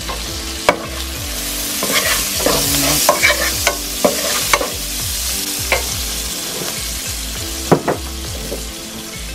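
Shrimp, onion, garlic and ginger sizzling steadily in hot oil in a nonstick frying pan as they are stirred. The stirring utensil gives sharp taps and scrapes against the pan every second or so.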